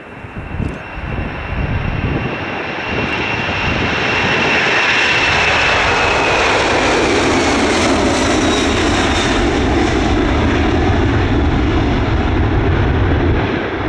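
Boeing 747-400's four turbofan engines at takeoff thrust as the jet lifts off and climbs past. The sound swells over the first few seconds, a high engine whine slides down in pitch as it passes, and a deep rumble takes over as it climbs away.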